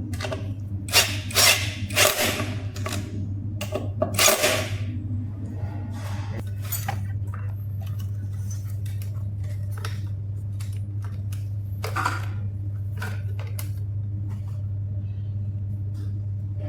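Small metal parts and tools clinking and clattering during hand repair work, busiest in the first five seconds and then scattered clicks, over a steady low hum.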